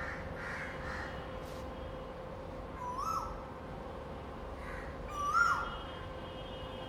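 Male Asian koel singing its "ku-oo" call twice, about two seconds apart; each note rises in pitch then drops away, and the second is louder.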